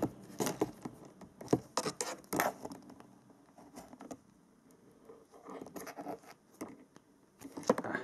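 Small hand cutters clicking and scraping as they strip the insulation off thin balance-lead wires: a run of sharp clicks in the first couple of seconds, a quieter stretch, then more clicks near the end.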